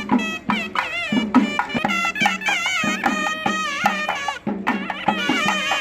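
Traditional folk-style music: a wind instrument plays a wavering, ornamented melody over a steady low drone, with regular drum strokes.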